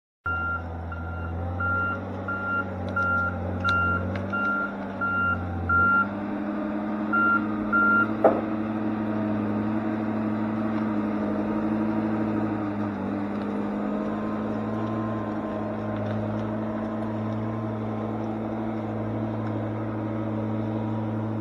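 Diesel engine of a piece of heavy logging equipment running while its backup alarm beeps about twice a second; the beeping stops after about eight seconds, a sharp clank follows, and the engine keeps running steadily.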